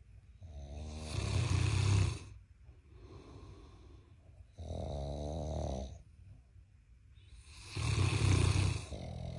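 Loud snoring from a giant Mastiff puppy and a man asleep: three long snores, each a second or two long and about three and a half seconds apart, with softer breaths between them.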